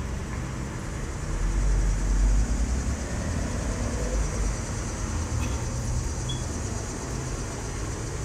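Steady low rumble that swells for about a second, a little after the start.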